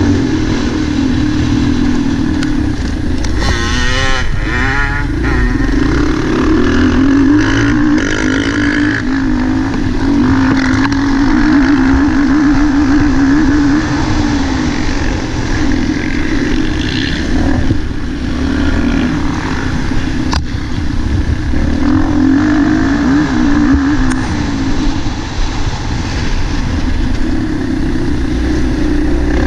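Onboard sound of a motocross bike racing on a dirt track: its engine running hard, pitch rising and falling as the throttle is opened and shut, with other motocross bikes' engines close by. A single sharp knock about twenty seconds in.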